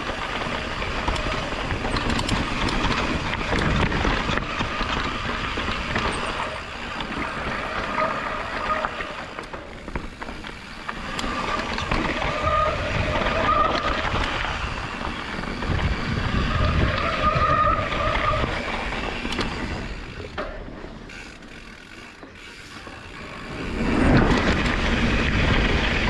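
Evil Insurgent MX mountain bike descending a trail: tyres on dirt, the frame and chain rattling, and the rear hub's ratchet clicking while coasting. The noise swells and fades with the terrain, dips about twenty seconds in, then rises loud again near the end.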